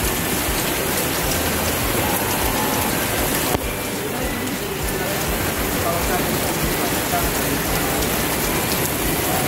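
Steady rain falling, an even hiss of many drops, with a short click about three and a half seconds in.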